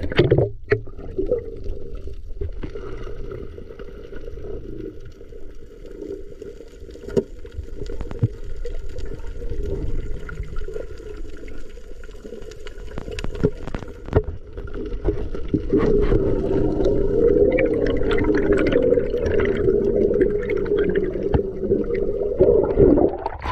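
Underwater sound through an action camera's housing during a breath-hold dive: a splash as it goes under, then a muffled low rumble with scattered sharp clicks. A steady droning hum runs underneath and grows louder about two-thirds of the way through.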